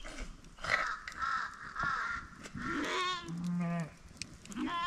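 Young sheep and goats bleating: several wavering calls one after another, the last near the end.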